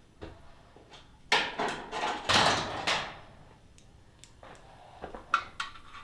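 Workshop handling noises: scattered clicks and knocks of parts being moved, with a louder scraping, rustling stretch between about one and three seconds in.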